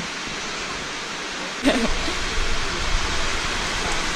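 Steady rain hiss. A little under two seconds in there is a short click and the rain turns louder, with a low rumble under it.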